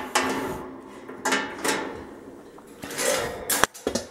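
Parts of a wire rat cage being handled and set in place: a few short knocks and rattles, with a sharp clack about three and a half seconds in.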